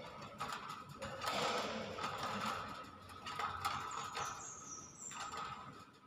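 Hill myna at close range making harsh, scratchy rasping sounds, followed by a thin high whistle about four seconds in.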